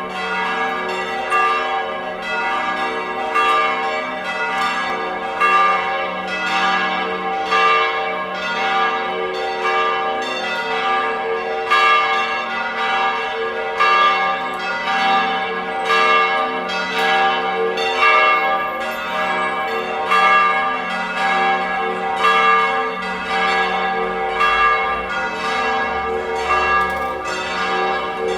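Church bells ringing on and on, several bells struck in a steady run of strokes, their tones overlapping and ringing on between strikes.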